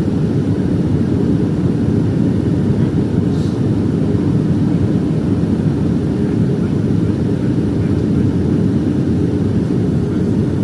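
Steady cabin noise of a Boeing 757-232 on final descent: an even, low rush of engine and airflow noise with no change in level.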